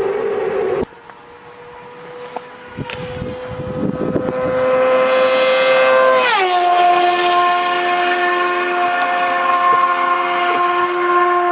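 A different loud engine sound cuts off abruptly about a second in. Then a vehicle engine held at high, steady revs grows louder as it approaches. About six seconds in its pitch drops sharply as it passes, and it runs on steady at the lower pitch.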